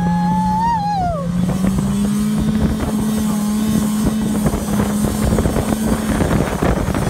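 Snowmobile engine running steadily under way, its pitch edging slightly up, with wind buffeting the microphone. A brief high tone falls away and stops about a second in.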